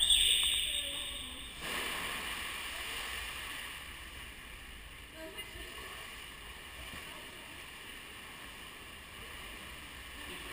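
Steady, echoing wash of water in an indoor swimming pool hall as a swimmer does front crawl, with faint distant voices in the reverberant hall. A brief hiss fades away at the very start.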